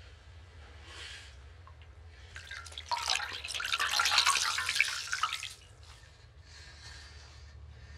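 Wet crackling and squelching of a hand scooping a soft, wet lump of food out of a metal pot. It swells for a few seconds in the middle, with fainter touches before and after.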